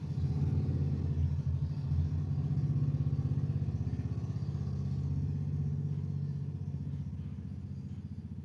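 Low, steady rumble with a fast flutter from the stove as a wok of watery curry heats toward the boil.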